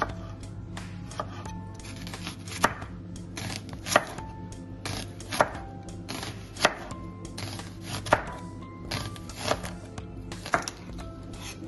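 Kitchen knife slicing pickled gherkins and an onion on a wooden cutting board. Each cut ends in a sharp knock on the board, with about seven strong, evenly spaced knocks roughly a second and a half apart and lighter taps between them.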